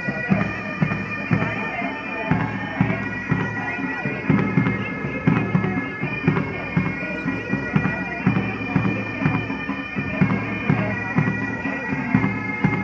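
Military pipe band playing a march: bagpipes with a steady drone under the melody, and drums beating about twice a second.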